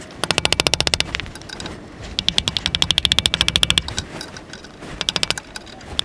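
Hammer rapidly striking a screwdriver held against a Ford SportKa's exhaust flexi pipe, metal on metal, to knock the stuck pipe off the downpipe flange. The blows come in fast runs of about a dozen a second: one lasting about a second, a longer run from about two to four seconds in, and a short one near the five-second mark.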